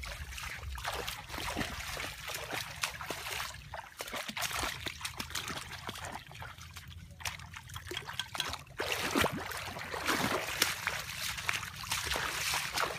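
Shallow water trickling and splashing in a flooded ditch, with feet wading through it and scattered short splashes.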